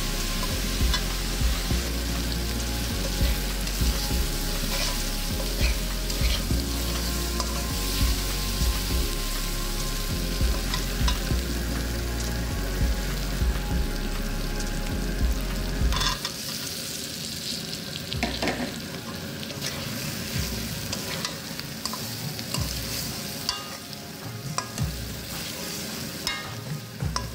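Sliced onions sizzling as they fry in oil in a wok. A metal spatula stirs and scrapes against the pan with many short scraping clicks; near the end it tosses potato cubes in with the onions.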